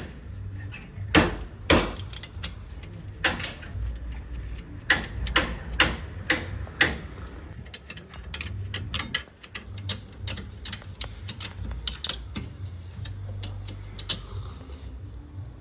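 Brake caliper bolts being fitted and tightened with a ratchet wrench: a run of sharp metallic clicks, with a few louder knocks in the first seven seconds and quicker, lighter clicking after, over a low steady hum.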